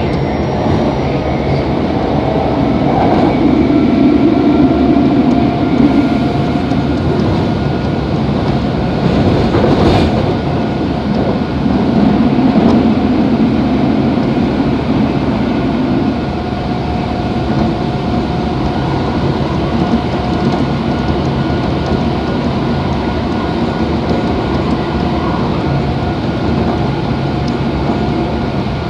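Kobe Municipal Subway 3000 series car with a Hitachi GTO-VVVF inverter running through a subway tunnel, heard from inside the car: wheels rumbling on the rails under a faint steady traction whine. The rumble swells twice, and there is one sharp click.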